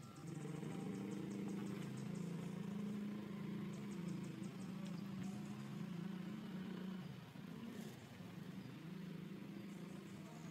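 A steady low engine hum, like a motor vehicle running nearby, that eases off somewhat about seven seconds in.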